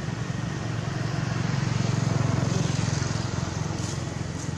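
A motor vehicle's engine hum, a low steady drone that swells to its loudest about two seconds in and fades again, like a vehicle passing by.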